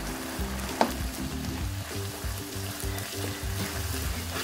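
Chickpeas and spices sizzling in oil in a nonstick wok while a slotted spatula stirs them, with a sharp scrape of the spatula about a second in. Low background music plays under it.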